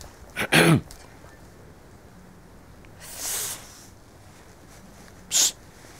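A woman's short non-speech vocal and breath sounds: a quick voiced sound falling in pitch near the start, a longer breathy hiss about three seconds in, and a short sharp hiss of breath near the end.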